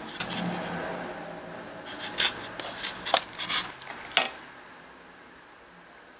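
Plastic takeout containers shifted and rustled on a tabletop, then the clear plastic lid of a takeout tray unsnapped with a handful of sharp crackling snaps between about two and four seconds in.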